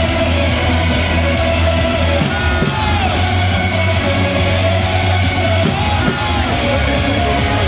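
Baseball cheer song playing loudly, with a heavy bass beat and voices singing and yelling along.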